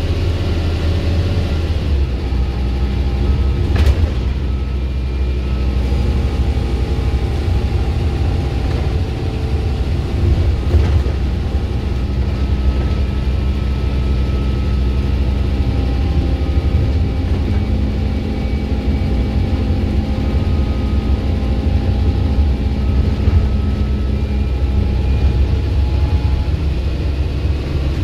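Scania single-deck bus's diesel engine heard from inside the passenger saloon as the bus drives along: a steady low drone whose engine note steps up and down in pitch as the bus changes speed. Two short sharp knocks from the body, one about four seconds in and another around eleven seconds in.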